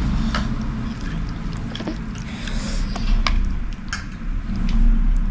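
A few light, scattered clinks of a spoon against a bowl during eating, over a steady low rumble.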